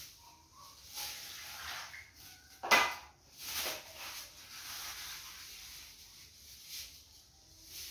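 Thin plastic bags rustling and crinkling as small bags of juice are filled and tied off by hand, with one sharp knock a little under three seconds in.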